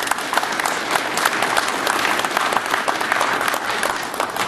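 Audience applause, many hands clapping together, dying away near the end.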